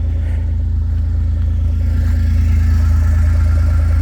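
Kawasaki Mule utility vehicle's engine running steadily, a low, even drone that gets a little louder about halfway through.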